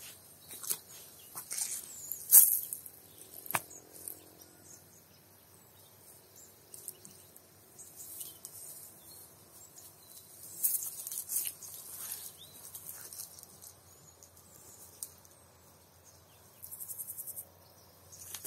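Cow grazing: irregular sharp crunches of grass being torn and chewed, with insects and birds chirping in the background and a short run of rapid, even chirps near the end.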